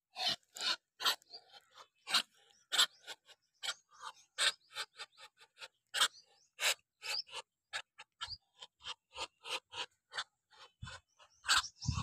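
Muscovy drake hissing in a run of short breathy puffs, about two or three a second, as it bobs its head in display.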